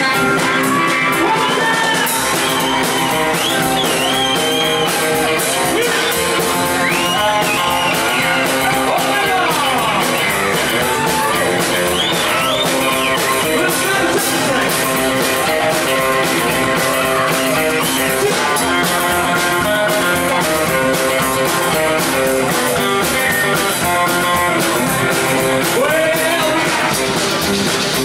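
Rockabilly band music with electric guitar, its notes gliding up and down through the middle of the passage.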